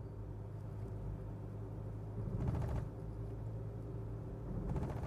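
Steady low drone of a car's engine and tyre noise heard from inside the cabin while driving on a highway, with two brief swells of louder rumble about two and a half and four and a half seconds in.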